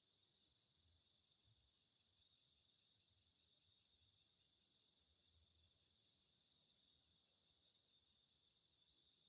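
Crickets trilling steadily and faintly, a fast pulsing high chorus, with a short double chirp about a second in and again at about five seconds.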